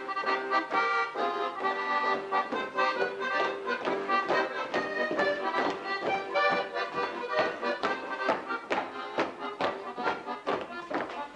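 Accordion playing a fast folk-style tune, a quick run of notes.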